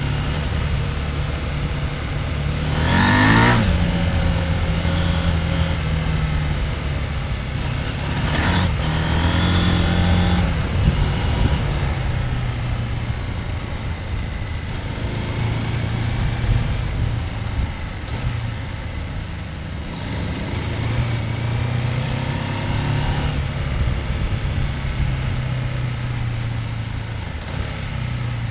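Husqvarna Norden 901's parallel-twin engine running under way off-road, its pitch rising and falling with the throttle, with two brief sharp revs about three and eight seconds in.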